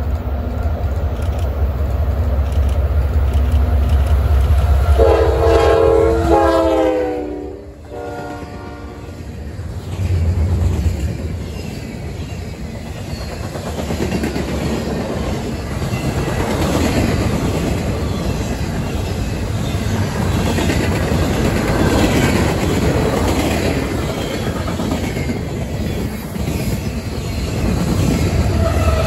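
Freight train passing: the diesel locomotives rumble in and sound a multi-note air horn for about three seconds, its pitch falling as they go by. The freight cars then roll past with a steady clatter of wheels on rail. Near the end the low engine rumble swells again as a mid-train locomotive nears.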